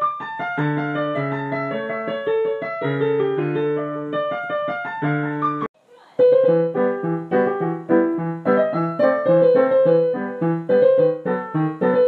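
Piano music: chords under a melody, breaking off for about half a second a little before the middle, then resuming with quicker, short repeated notes.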